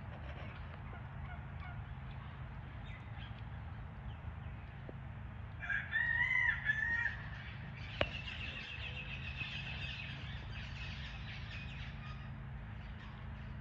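A rooster crows once, about six seconds in, a loud call lasting about a second and a half. Afterwards a bird chatters faintly in quick high notes over a steady low hum.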